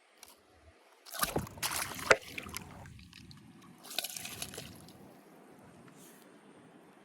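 Water splashing and sloshing in two bursts: a louder one about a second in and a weaker one about four seconds in.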